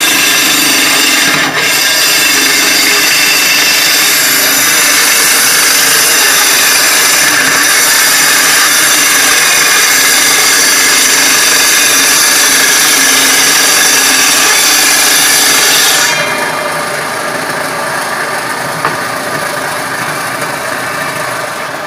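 Table saw ripping a board lengthwise along the fence, a loud steady whine of the blade in the wood. About three quarters of the way through the noise drops sharply as the cut ends, then fades.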